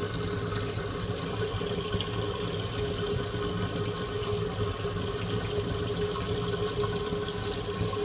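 Water circulating in a 220-gallon reef aquarium: a steady rush and trickle of moving water at the open top, with a steady low hum.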